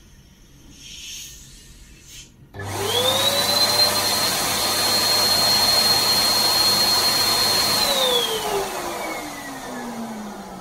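Electric balloon pump switched on, its motor spinning up to a steady whine with a rush of air as it inflates a latex balloon. After about five seconds it is switched off and winds down, its pitch falling.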